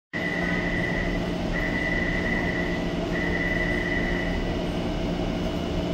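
Steady rumble of a metro train approaching through the tunnel, heard on an underground platform, with a high steady whine that comes and goes three times, each lasting about a second.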